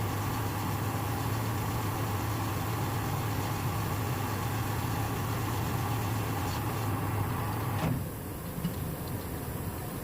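Lathe running with a steady hum, which drops off sharply about eight seconds in after a click, followed by a few light ticks.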